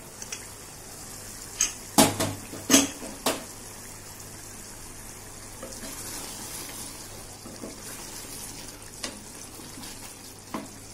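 Metal pressure cooker lid clanking several times as it is handled and taken off, then thick mutton curry bubbling and sizzling in the open cooker, with a wooden spoon knocking against the pot twice near the end.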